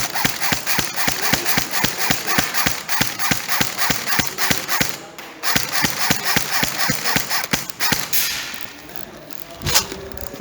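Quick, evenly spaced footsteps, about four a second, of an airsoft player moving fast along a flank. They pause briefly about five seconds in and stop near eight seconds. Near the end comes a single sharp crack from an airsoft gun being fired.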